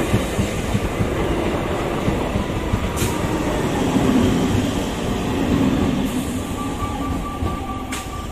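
Electric multiple-unit suburban local train passing at close range, a dense rumble of wheels and coaches on the track that fades in the last few seconds. A steady high tone comes in about two-thirds of the way through.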